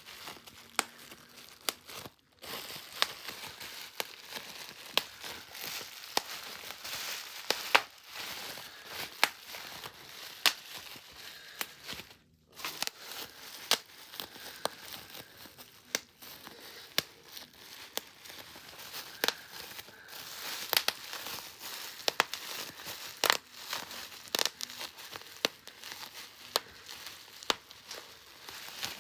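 Bubble wrap popped by hand: sharp, irregularly spaced pops over the constant crinkling of the plastic sheet.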